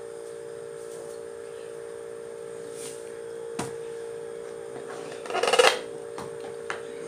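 A steady hum throughout, with a faint click past the middle. About five and a half seconds in comes a louder, brief clatter as a wooden spoon goes into a pot of simmering seafood soup and stirs it.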